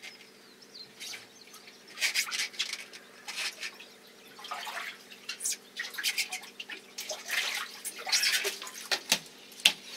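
Water splashing irregularly in a boat's fish well as a hand reaches in after a fish, with a steady hum underneath.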